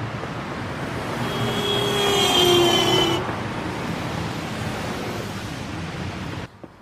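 City street traffic noise, with a vehicle passing close about two seconds in, its whine stepping down in pitch as it goes by.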